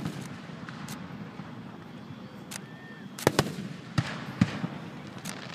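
Aerial firework shells bursting: about half a dozen sharp bangs over a steady haze, sparse at first and bunched in the second half.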